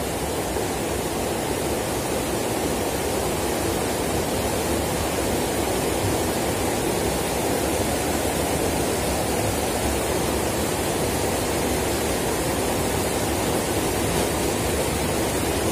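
Shallow rocky stream running steadily over stones, a continuous rushing of water with no breaks.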